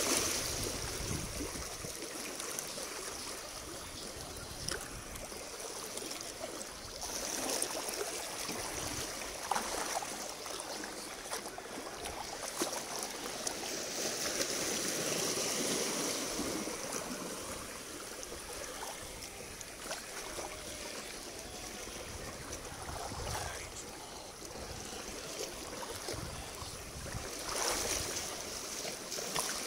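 Shallow water running and trickling among rocks, a steady hiss, with a few faint knocks and clicks.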